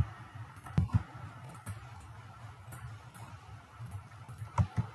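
Computer mouse clicking: two pairs of short sharp clicks, one about a second in and one near the end, over a low steady hum.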